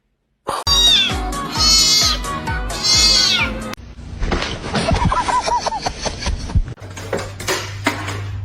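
Cat meowing in long, wavering calls over background music with a steady beat. Partway through, lower wavering calls follow over a steady low hum.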